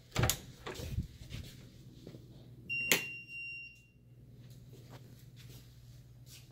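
Interior panel door being handled and opened: a few clicks and knocks in the first second or so. About three seconds in comes a short, high-pitched steady tone with a sharp click, the loudest sound. A steady low hum runs underneath.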